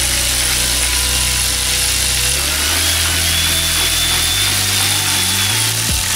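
Cordless electric ratchet running steadily with a faint wavering whine, spinning bolts out of the aluminium case of a Toyota R150 manual transmission. Background music with a low bass line runs underneath.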